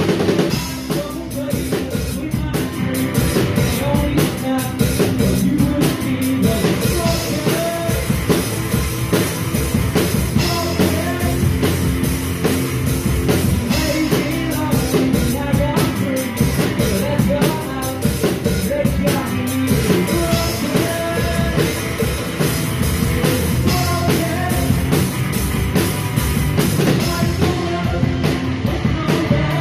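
Live rock band playing a song: electric guitars over a steady drum kit, with sung vocals.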